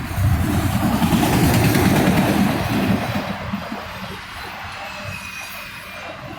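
Freight train of autorack cars rolling past, its steel wheels rumbling on the rails, loudest for the first three seconds and then easing off.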